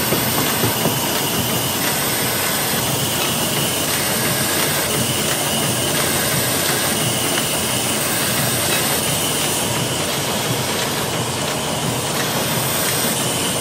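Thread book-sewing machine running steadily as folded signatures are fed in and sewn into book blocks: a continuous, even mechanical noise.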